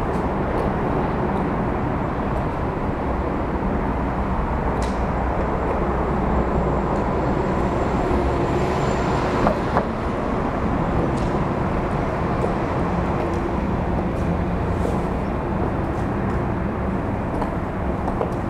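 Steady road traffic noise, an even low rumble, with a few faint clicks scattered through it.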